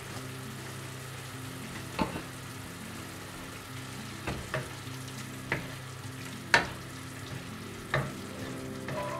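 Diced vegetables and bacon simmering in water and stock in a frying pan, stirred with a black ladle that knocks against the pan about six times. A steady low hum runs underneath.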